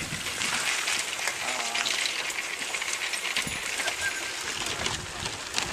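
Bicycle rattling over a rough dirt track, with steady hiss of tyre and wind noise and many small clicks and knocks.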